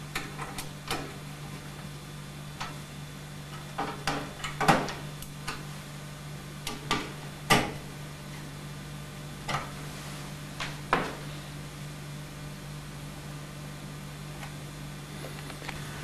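Screwdriver tightening motherboard mounting screws into a metal backplate: a dozen or so irregular clicks and knocks of the tool on screws and metal, ending after about eleven seconds, over a steady low hum.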